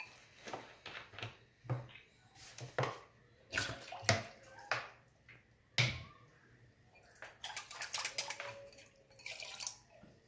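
Thick flour-thickened curry simmering in a clay pot, its bubbles bursting in irregular pops and plops, with a quicker run of pops about two-thirds of the way through.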